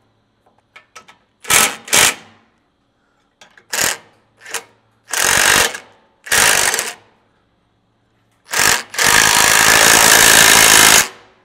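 Cordless impact tool with a 3/4-inch socket hammering half-inch bolts into a truck frame, in short bursts of rapid rattling impacts. The longest burst, about two seconds near the end, runs a bolt down tight.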